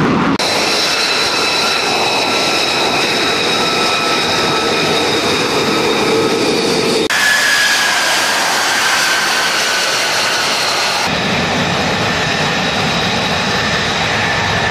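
F-35 Lightning II jet engine running, a steady loud rush with high-pitched turbine whine. The sound changes abruptly about seven and eleven seconds in; after the first change a whine slowly falls in pitch.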